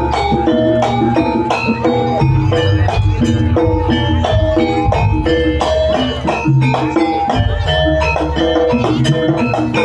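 Live Javanese jaranan ensemble music: struck gamelan metallophones ringing out quick melodic notes over a steady drum beat.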